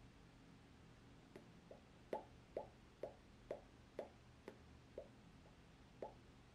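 Oil glugging out of a glass bottle into a plastic funnel as it is poured. About a dozen short, regular plops come roughly two a second, starting about a second and a half in, as air bubbles back into the bottle neck.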